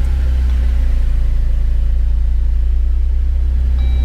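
2021 Jeep Wrangler Rubicon's engine running with a steady, deep low drone.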